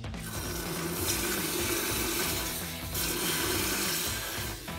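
Red-hot steel claw hammerhead being quenched in a bucket of liquid to harden it: a steady hissing, bubbling sizzle that starts as the steel goes in, dips briefly near the end, then picks up again.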